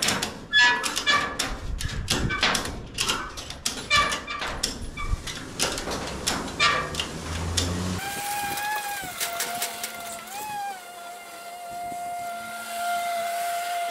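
Ratchet strap being cranked by hand: a run of irregular metallic clicks and clunks from the ratchet's pawl and gear. About eight seconds in it gives way to a steady whine that swells up in pitch briefly about every second and a half to two seconds.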